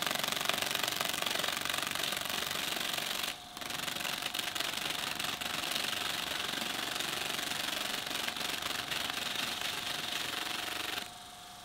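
Small desk fan's spinning blades rapidly slapping against fingers held into them: a fast, continuous rattling buzz with a steady motor hum beneath. It breaks off briefly just after three seconds, then stops near the end, leaving only the hum.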